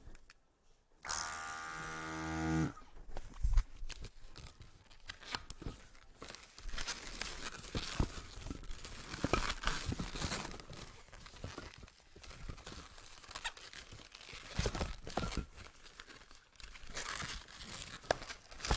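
Latex modelling balloons rubbing, creaking and squeaking against each other as they are twisted and wrapped into pinch twists. About a second in, a pitched squeal lasts under two seconds.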